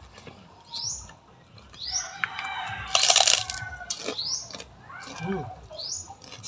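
A small bird repeating a short rising chirp about once a second. About three seconds in there is a brief, loud, noisy burst.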